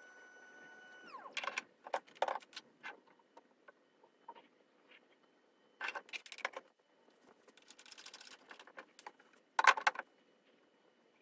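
A small electric tool motor whines at a steady pitch and winds down about a second in. Then come scattered clicks, taps and rattles of small hard parts being handled, with the sharpest cluster near the end.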